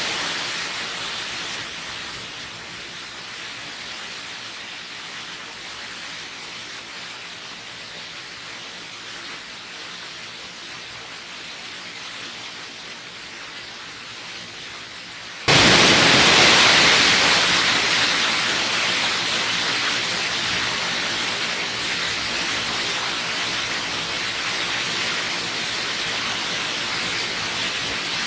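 Steady rushing of a waterfall. The rush is fairly soft and thin at first; about halfway through it cuts abruptly to a louder, fuller roar of falling water, the sound of a different falls.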